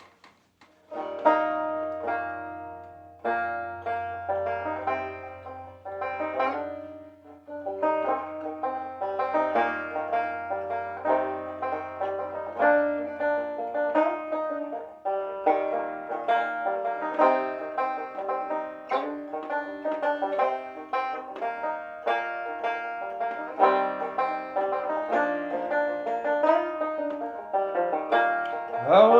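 Banjo played solo, a steady run of plucked notes that starts about a second in.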